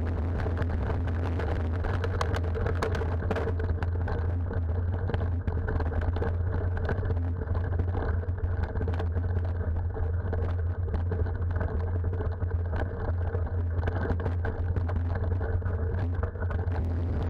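Steady low rumble of a mountain bike riding a dirt and gravel track, heard through a bike- or helmet-mounted camera, with wind noise on the microphone and scattered small knocks from bumps.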